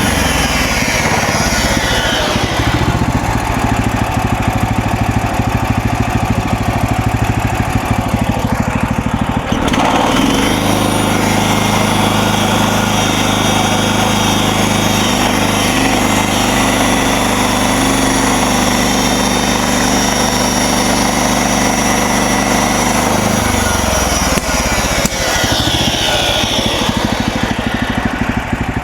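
Gas engine of a MechMaxx SM32 portable bandsaw mill running steadily under load while the band blade saws through a cedar log. The engine note shifts about ten seconds in and changes again near the end.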